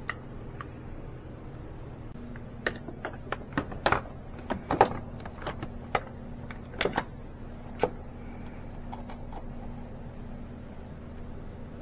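Hand tools clinking and knocking on metal fasteners during starter motor work: a dozen or so irregular sharp clicks over a few seconds, then only a steady low hum.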